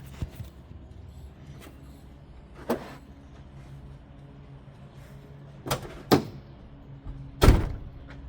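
A handful of sharp knocks and bangs, the loudest near the end, over a steady low hum.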